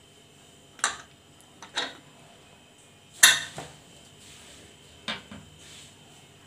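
Metal clinks from an aluminium Prestige pressure cooker being handled as its whistle weight is lifted off the steam vent: four separate clinks, the loudest about three seconds in.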